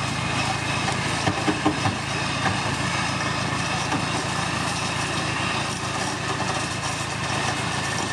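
Off-road vehicle engine running steadily with a constant low hum, with a few short knocks about a second and a half in.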